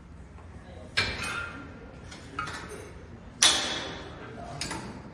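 Metal gym weights clanking: a handful of sharp, ringing clanks, the loudest about three and a half seconds in.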